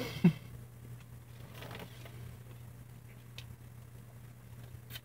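Soft sipping and swallowing as soda is drawn up the long tube straw of novelty drinking glasses. A short throaty sound right at the start is the loudest moment, with a faint click near the end and a steady low hum underneath.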